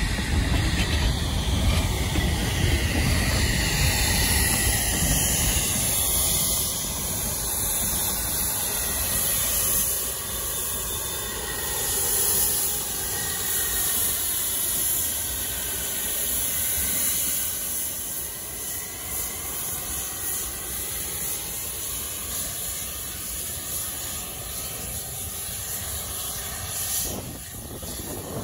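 Two 1875 Baldwin 4-4-0 narrow-gauge steam locomotives, Glenbrook and Eureka & Palisade #4, running past with a steady hiss of steam. It is loudest in the first several seconds, then eases off.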